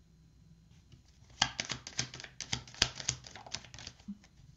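A quick, irregular run of light clicks and taps from tarot cards being handled on a table. It starts about a second and a half in and stops shortly before the end.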